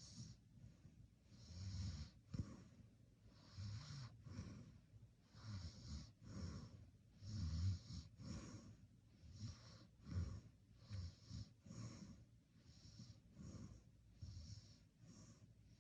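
A sleeping person snoring faintly: low, rough snores with breathy hiss, one on each breath, repeating about every second or two.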